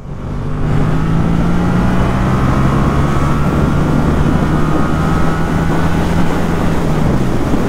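Motorcycle engine, from the rider's Yamaha MT-07, getting louder in the first second as the bike pulls away, then running at a steady pace. Wind rushes over the helmet microphone.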